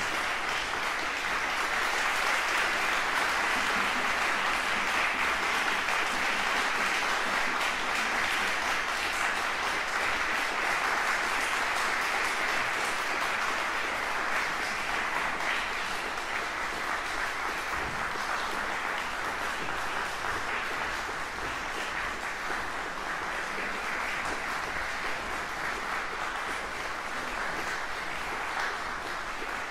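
Concert audience applauding, a dense steady clapping that eases a little in the second half.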